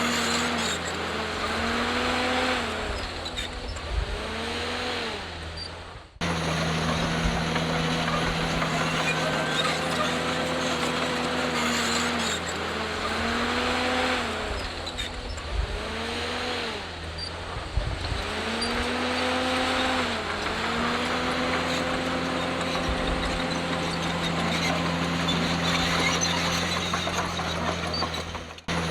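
Komatsu D51PX bulldozer's diesel engine running under load, its pitch rising and falling again and again as the machine works. The sound breaks off for a moment about six seconds in and again near the end.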